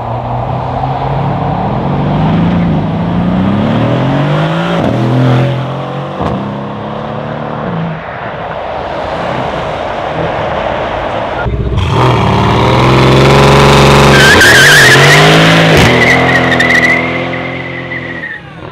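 Mercedes-AMG C63 S estate's twin-turbo 4.0-litre V8 accelerating away, its pitch climbing and stepping through several quick upshifts. Then, after a cut, a second car revving hard with its tyres squealing for several seconds in a smoky burnout. The burnout is the loudest part.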